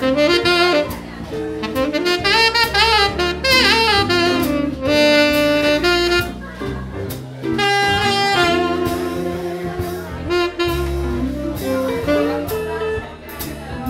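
Saxophone playing a solo, a melodic line with wavering held notes and quick runs. Under it, a live jazz-blues band keeps time with bass, drums and guitar.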